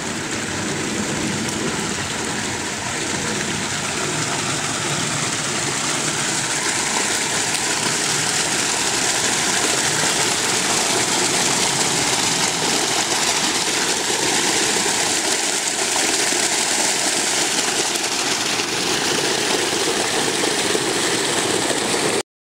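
Creek water running over rock ledges and a small cascade: a steady rushing that grows a little louder through the middle and cuts off suddenly near the end.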